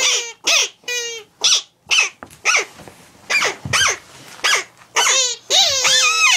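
A child's put-on barking cough: about a dozen short, high-pitched, yelping hacks in quick succession, each bending in pitch, the last one drawn out longer.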